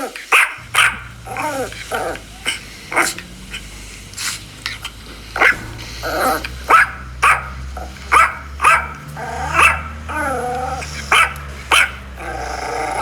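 A dog barking repeatedly in short, sharp barks at irregular intervals, over a steady low hum.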